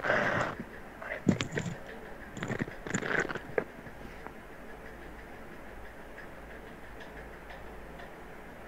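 A few scattered clicks and knocks of computer mouse and keyboard handling in the first few seconds, then a faint steady room hum.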